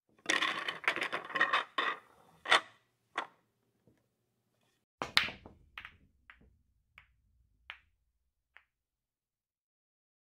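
A rapid flurry of sharp knocks and clicks over the first two and a half seconds. Then a single hard click about five seconds in, followed by five fainter clicks at irregular gaps of roughly half a second to a second.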